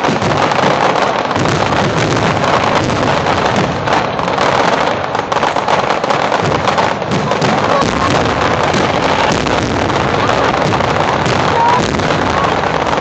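Fireworks going off in a rapid, near-continuous barrage of bangs and crackles, loud on a phone's microphone, with crowd voices and music underneath.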